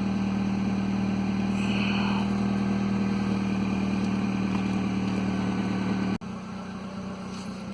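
2003 Toyota Corolla's cabin blower fan running on high with a steady loud hum, the noise the owner blames on leaves caught in the blower. About six seconds in it drops abruptly to a quieter steady hum.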